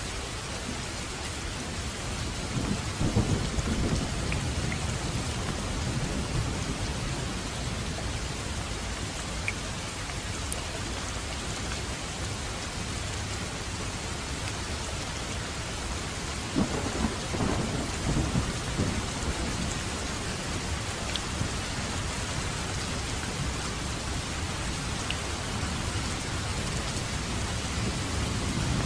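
Heavy rain falling steadily, with rolls of thunder rumbling through it, about three seconds in and again from about sixteen to nineteen seconds.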